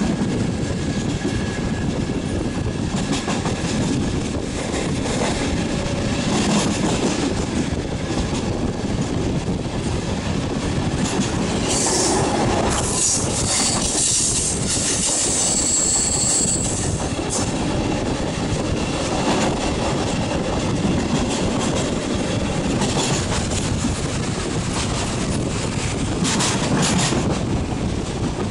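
Regional train running along the track, heard from an open carriage window: a steady rumble of wheels on rail. From about 12 to 17 seconds in, a high wheel squeal rises over it as the train takes a curve.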